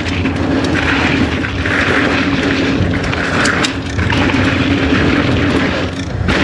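A mountain bike riding fast down a dry dirt trail: steady tyre and wind noise on the camera microphone, with a few sharp clicks and rattles from the bike over rough ground. The noise eases briefly near the end.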